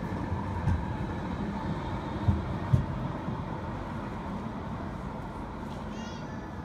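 A Rheinbahn tram rolls past close by on street track and away, with a steady low rumble. Three heavy low thumps come about one to three seconds in, and the rumble fades after. A brief high wavering chirp comes near the end.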